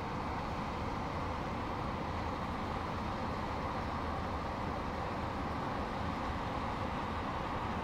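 Inland motor tanker passing close by, its engine a steady low rumble under the rush of its bow wave.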